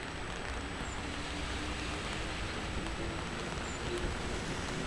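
A train running at a railway station: a steady rumble and hiss with a faint whine that rises slightly in pitch.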